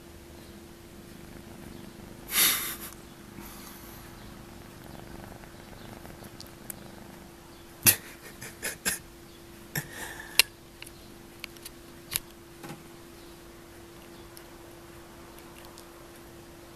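Persian kitten pawing at the camera: a short, loud, noisy burst about two seconds in, then a run of sharp clicks and taps from its paws and claws on the camera and strap between about eight and thirteen seconds in, over a faint steady hum.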